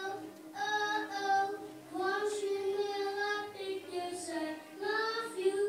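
A young boy singing a song, holding long notes in phrases with short breaks between them.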